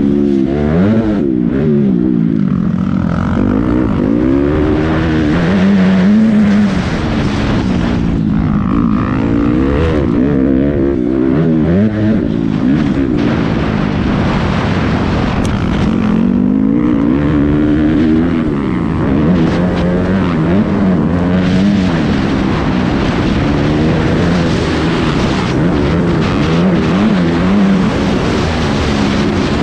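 Motocross bike engine revving hard, its pitch climbing and dropping again and again as the rider works the throttle and shifts through the gears, with wind noise over the helmet camera's microphone.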